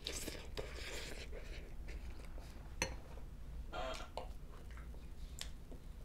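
Faint sounds of a person eating ramen noodles: soft chewing and breathing, with one sharp click about three seconds in, like a utensil against the bowl.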